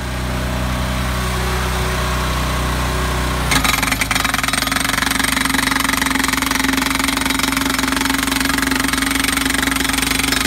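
Engine of a hydraulic power unit running steadily. About three and a half seconds in, a Rhino HPD-60 hydraulic post driver starts hammering rapidly as it drives a blunt 2" x 3" wood post into dirt.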